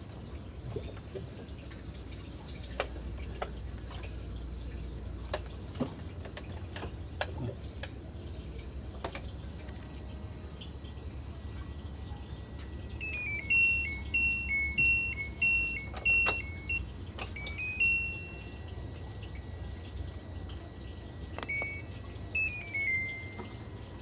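Water dripping and trickling inside a single-tub LG washing machine's wet tub, with scattered sharp clicks in the first half. About halfway through, a run of short, high chirping notes comes in for several seconds, and again briefly near the end; these are the loudest sound.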